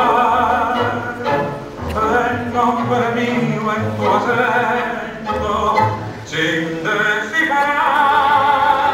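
Argentine tango music with a sung vocal over instrumental accompaniment, the voice wavering with vibrato above a stepping bass line.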